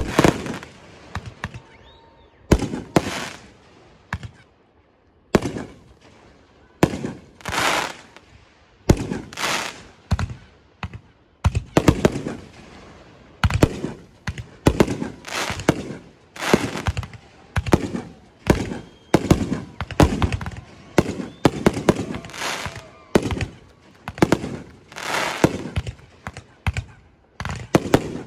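Fireworks going off one after another: sharp bangs at irregular intervals, often a second or less apart, each fading out with a short trailing rumble.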